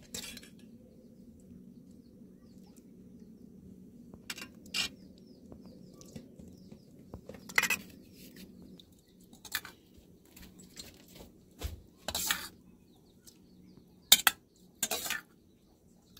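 Stainless steel plates, bowls and a ladle clinking and scraping as rice and curry are served out: scattered knocks and scrapes, the sharpest one near the end.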